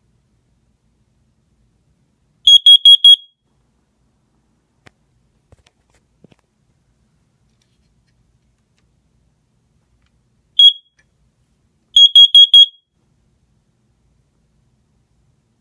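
Piezo horn of a First Alert carbon monoxide alarm going off: a group of four quick high-pitched beeps, then a single beep and another group of four about nine seconds later. The four-beep group is the carbon monoxide alarm pattern. A few faint clicks fall between the groups.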